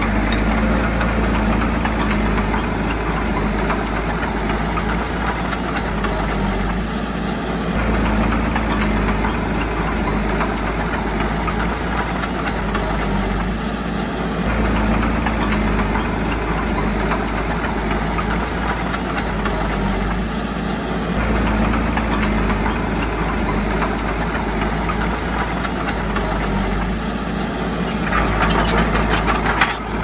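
Bulldozer's diesel engine running steadily, its sound easing and swelling about every six or seven seconds.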